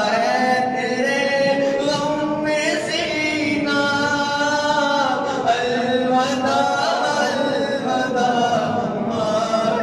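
Several men's voices chanting a devotional recitation together, continuous and melodic.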